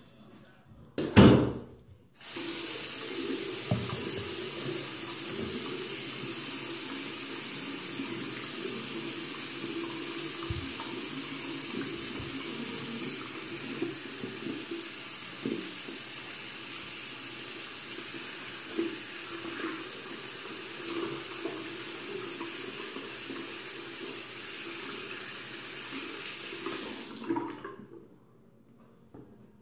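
A sharp knock about a second in, then the bathroom sink faucet is turned on and water runs steadily into the basin, with the splashing of hands being soaped and rinsed under the stream. The water shuts off near the end.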